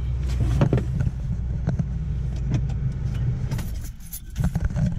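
Car cabin noise: a steady low engine and road hum from the moving car, fading about three and a half seconds in, with scattered light clicks and taps throughout.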